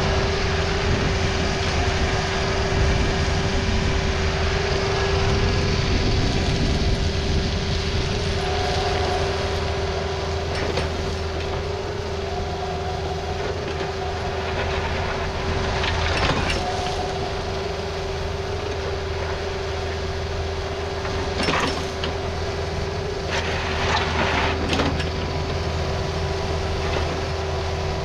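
Takeuchi TB260 mini excavator's diesel engine running steadily with a constant whine, as it works its boom and bucket. A few short knocks and scrapes of the bucket come in the second half.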